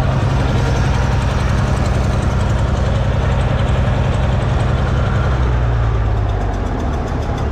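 Tractor engine running steadily, then throttled back about six seconds in, its pitch dropping as it slows down toward idle before being shut off.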